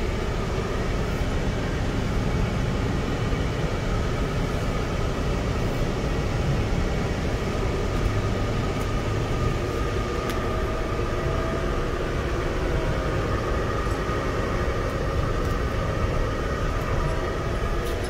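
Fendt 720 tractor running steadily while plowing snow: a low rumble with a faint, steady high whine over it.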